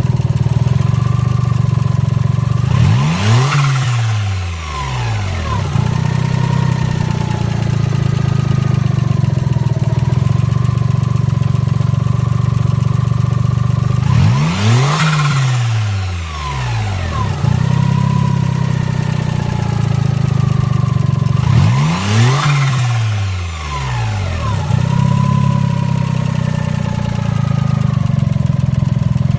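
Suzuki Cappuccino's small three-cylinder engine idling steadily and blipped three times, each rev rising quickly and falling back to idle. It is fresh from an oil change and running well.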